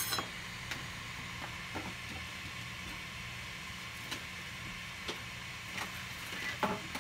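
FlashForge Finder 3D printer running with a steady low hum and hiss, and a few faint ticks. A short knock comes right at the start.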